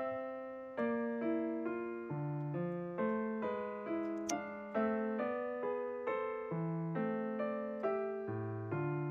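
Background music: a gentle solo piano melody, each note struck and left to fade, about two notes a second.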